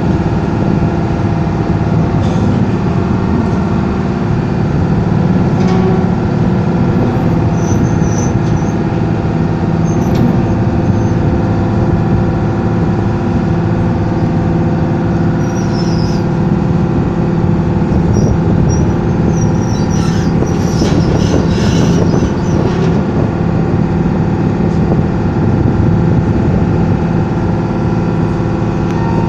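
A boat's engine running steadily under way: a loud, even drone with a low hum that does not change in speed or level.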